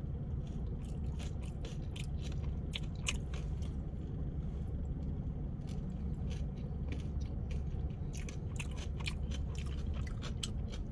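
Close-up chewing of crunchy fried tortilla chips: a run of quick, crisp crunches over a steady low hum inside a car.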